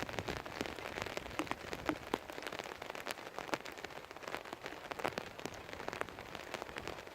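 Rain falling steadily, with many separate drops ticking sharply and irregularly close to the microphone.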